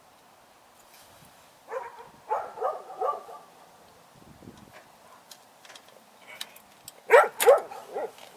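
Dog yapping: a quick run of four or five barks about two seconds in, then a second, louder run of barks near the end.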